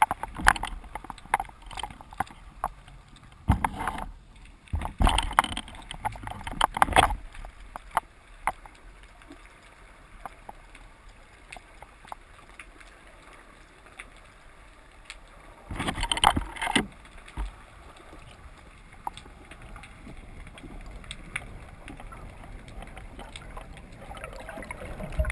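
Underwater sound through a camera housing on a spearfishing dive: a faint steady water hiss with scattered small clicks. Loud rushing, knocking bursts come around 4 to 7 seconds in and again around 16 seconds in.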